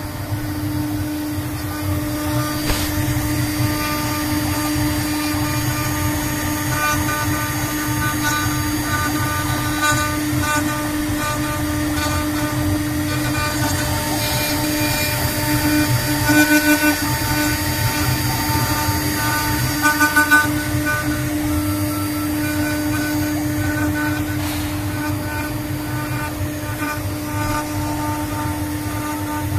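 CNC router spindle running at a steady high pitch while the bit carves a wooden cylinder turning on the rotary fourth axis, with rough cutting noise underneath. The cutting gets briefly louder about halfway through and again a few seconds later.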